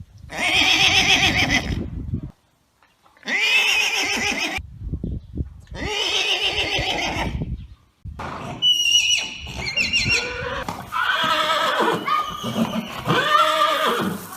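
Horses neighing: three long whinnies, each about two seconds with a quavering pitch, followed by a run of higher, trembling whinnies and shorter calls that rise and fall in pitch.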